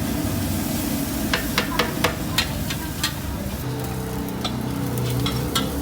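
Fried rice being stir-fried in a wok over a stall burner: a metal spatula clanks and scrapes against the wok at irregular moments, a couple of times a second, over sizzling. A steady low hum runs underneath and grows firmer about halfway through.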